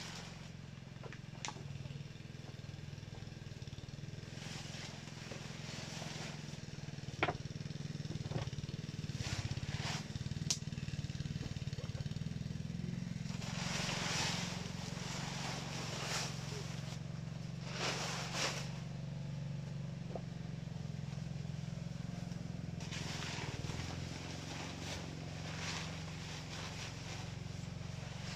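Rustling and scattered knocks of hands working around a hide-smoking rack and plastic sheeting, over a steady low hum.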